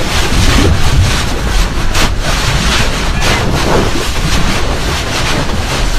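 Loud, steady rushing noise with faint crackling through it.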